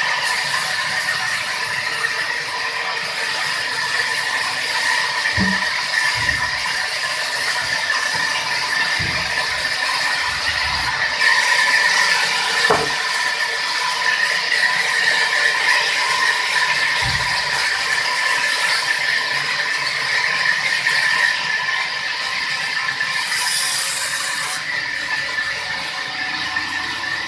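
Sawmill saw running through wood, a steady high whine over a hissing cutting sound, with a few dull knocks scattered through.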